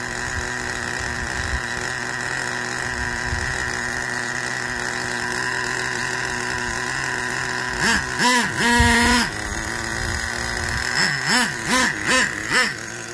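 Nitro RC monster truck's small glow-fuel engine idling steadily, with two bursts of quick throttle blips about eight seconds in and again near the end, the pitch rising and falling with each blip. The owner says it idles well but runs rich.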